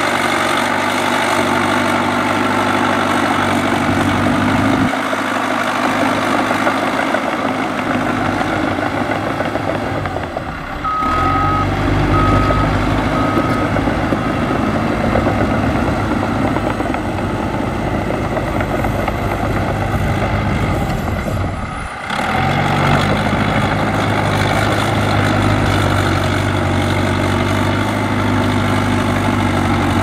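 Cat D3K2 crawler dozer's diesel engine running under load as it pushes dirt, the engine note changing abruptly about 11 and 22 seconds in. Just after the first change, a reversing alarm beeps three times.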